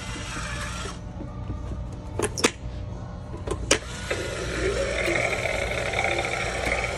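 Animatronic caged-ghoul Halloween prop in motion: its motor hums steadily, and a few sharp clacks come about two to four seconds in as it shakes its cage bars. About four seconds in, its recorded growling voice starts up.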